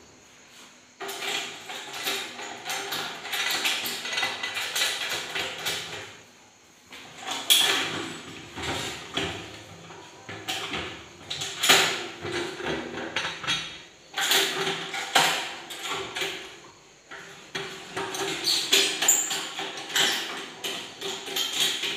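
Metal clanking, clicking and scraping as the lid clamps and black knobs of a stainless-steel steam autoclave are worked by hand, in irregular bursts with a few short pauses.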